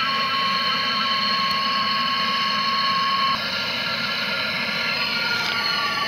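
Handheld gas torch burning with a steady hiss, heating a refrigerator's copper pipe until it glows red for brazing. A steady whistle runs over the hiss and cuts off about halfway through, where the sound drops slightly.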